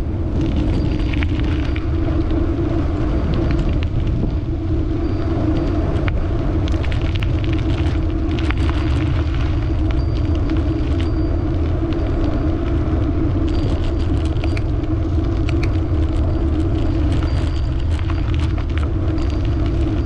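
Wind rushing over the microphone and the rumble of bicycle tyres rolling along, steady throughout, with scattered light clicks and rattles.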